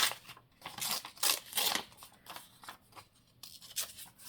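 Scissors cutting through paper: a few crisp snips in the first two seconds, then softer paper handling.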